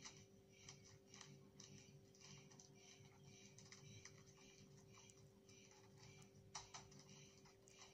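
Faint rustling and crinkling of gift-wrapping paper being folded and creased by hand, in short irregular bursts. There is a sharper snap of the paper right at the start and another about six and a half seconds in, over a steady low hum.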